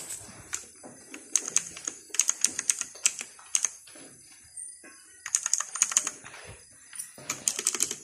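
Mechanical keyboard keys being typed on, rapid clicking keystrokes in short bursts with brief pauses between them, and a longer lull about halfway through.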